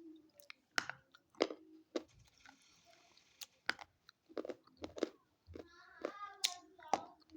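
Crunchy sticks being bitten and chewed close to the microphone: a run of sharp, irregular crunches.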